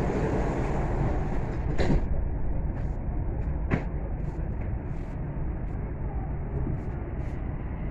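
Steady low rumble and hum inside a Dubai Metro train car just after the doors close. Two sharp knocks sound about two and four seconds in.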